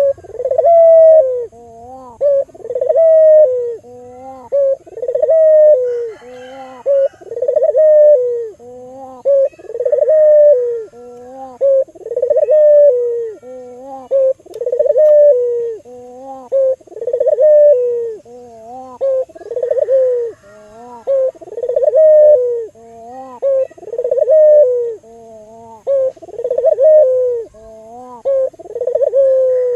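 Albino barbary dove (burung puter) cooing over and over, one rolling coo about every two seconds, many ending in a short lower note.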